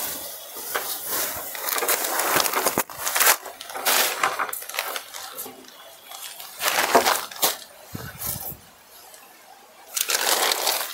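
Silk sarees rustling and swishing as they are handled, unfolded and spread out by hand, in several separate bursts.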